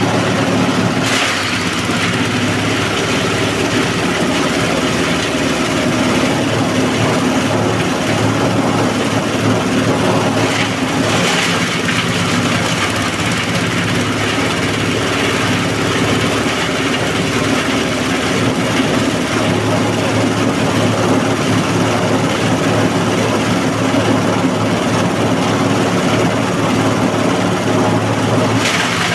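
Small diesel engine running steadily, driving a multifunction chopper-grinder machine, with a continuous broad whirring noise from the machine. Brief louder rushes of noise come about a second in, around eleven seconds, and near the end.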